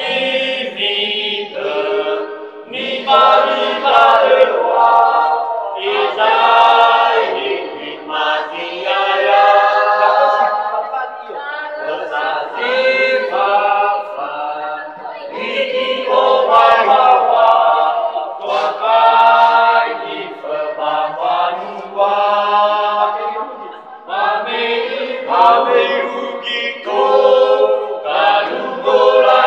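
A group of voices singing together unaccompanied, in sung phrases with brief breaks: traditional Nias group singing (koor/maena).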